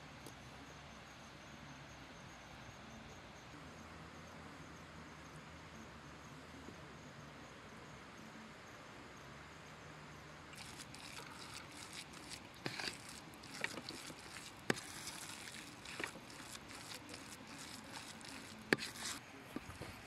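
Faint steady outdoor ambience. About halfway through, a hand starts kneading a soft, wet walnut-and-rice kuku mixture in a stainless steel bowl, making squelching and crackling with a few sharp clicks against the metal.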